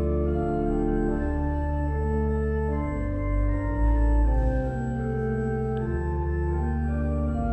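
Organ music: slow, sustained chords that change about once a second over a deep held bass.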